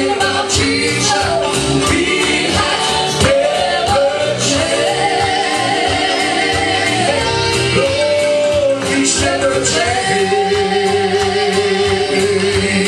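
Live gospel music: a band plays on while a voice holds long sung notes, with drums and cymbals keeping a steady beat.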